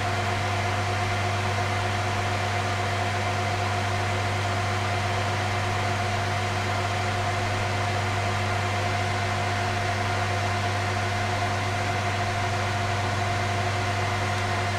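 Dual-Xeon file server running with its fan assembly removed: a steady machine hum of its many spinning IDE hard drives, a low drone with a few constant higher tones over an even hiss.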